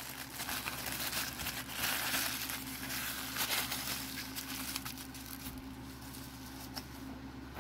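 Tissue paper crinkling and rustling as it is handled and folded, loudest over the first four seconds and softer after that.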